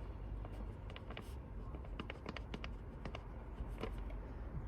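Faint, scattered light clicks and taps of objects being handled, bunched about two seconds in and again near the end, over a low steady background rumble.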